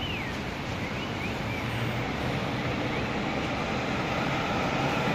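Steady rumble and hiss of city street traffic heard from an elevated platform, with a few short, high rising-and-falling whistling glides in the first half.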